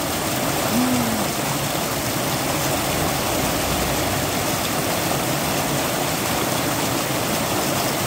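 Mountain-stream water rushing and splashing over rocks and over mesh sacks of peanuts set in the current, a steady, unbroken rush.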